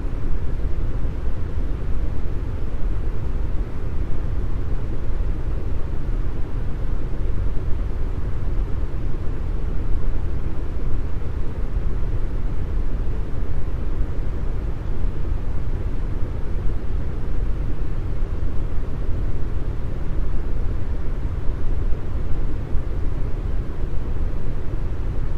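Deep brown noise: a steady, even hiss weighted heavily toward the bass, with little in the highs and no change over time.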